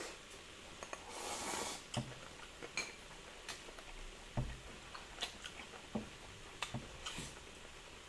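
Chapagetti noodles slurped once, about a second in, then scattered soft clicks and ticks of chewing and chopsticks tapping on ceramic bowls.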